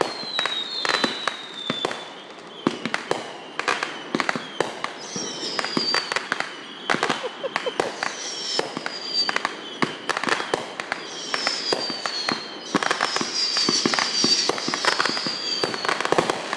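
Fireworks going off in quick succession: a dense run of bangs and crackles, with several high falling whistles among them. The barrage grows louder over the last few seconds.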